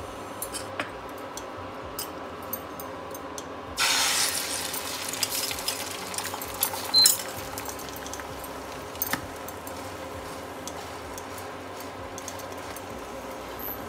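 Beaten egg poured into hot oil in a non-stick pan, starting to sizzle about four seconds in: a sudden hiss that dies down over a couple of seconds into a steady low sizzle. A few sharp clicks and clinks, the loudest near the middle.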